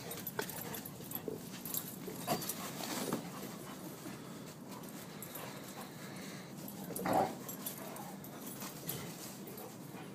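Labrador retrievers playing, with scattered short dog noises and small knocks, and a louder dog sound about seven seconds in.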